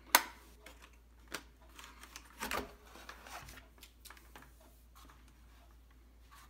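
Plastic keyboard being handled: a sharp click just after the start, a knock about a second later, a louder clatter of knocks and rubbing about two and a half seconds in, then faint light taps.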